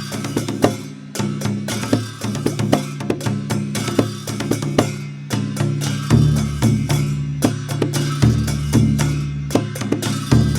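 Dhime, the Newar double-headed barrel drum, played in a fast, dense rhythm of sharp strokes over a deep ringing tone that grows heavier about six seconds in.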